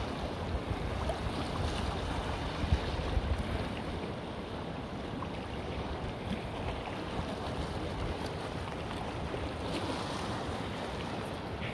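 River rapids rushing steadily, with wind buffeting the microphone in a few brief low gusts near the start.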